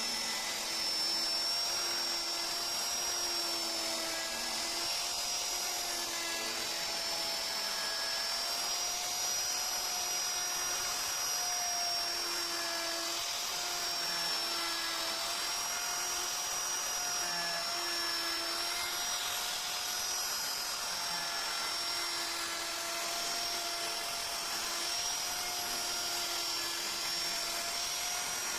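A small high-speed power tool, such as a rotary carving tool, running continuously with a steady high whine whose pitch wavers slightly as the load on it changes.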